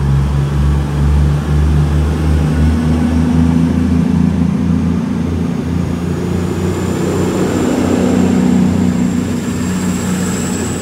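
CrossCountry Voyager diesel train's underfloor engines working hard as it pulls away, a deep note of several tones that steps up in pitch a couple of seconds in. A thin high whine climbs slowly through the second half.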